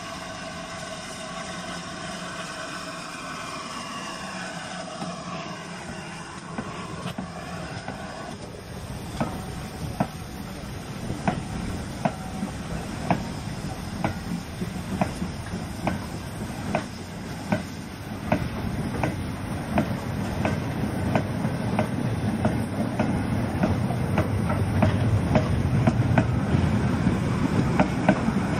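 Carriage wheels of a moving passenger train on jointed track. A high, ringing wheel squeal fades and cuts off about eight seconds in. After that the wheels click over the rail joints about once a second over a running rumble that grows louder as the train gathers speed.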